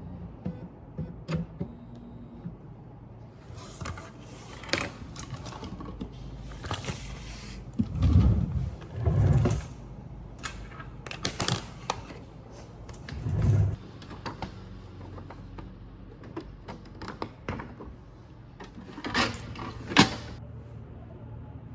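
Handling noises: scattered clicks, knocks and short rustles, with a few heavier low thumps in the middle.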